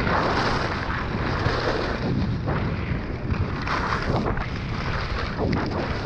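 Wind rumbling on the microphone of a skier coming down a groomed piste, with skis carving and scraping on packed snow that swells at each turn, several times.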